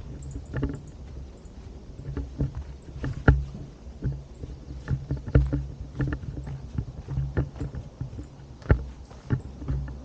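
Low, uneven rumble of wind and handling noise on a handheld camera's microphone while walking, with scattered clicks and knocks. The sharpest knocks come about three seconds in and again near the end.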